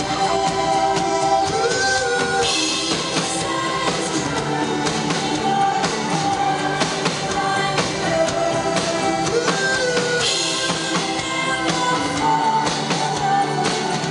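Rock band music with a singer's voice over a driving drum kit and bass drum.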